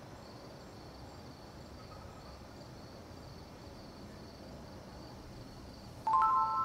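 Faint crickets chirping steadily through a silent pause. Near the end a few held musical notes come in.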